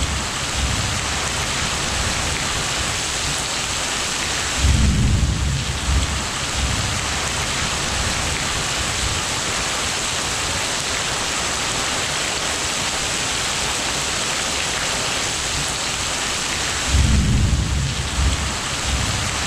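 Steady rain hissing throughout, with low rolls of thunder twice: about five seconds in and again about seventeen seconds in, each lasting a second or two.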